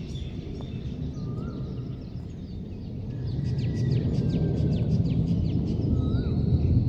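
Wild birds calling: a fast run of short, high downward chirps through the middle, and a short whistle that rises then falls, twice. A steady low rumble underlies it and grows louder about halfway through.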